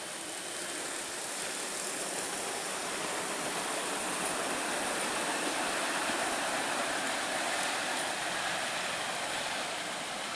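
Miniature park railway train running past on its narrow-gauge track: a steady rush of wheel-on-rail noise that grows to its loudest about halfway through, then eases off.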